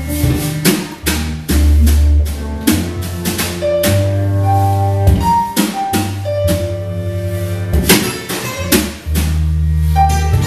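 A live jazz band plays a dance number: a drum kit keeps a steady beat under a deep bass line, with a few held melody notes on top.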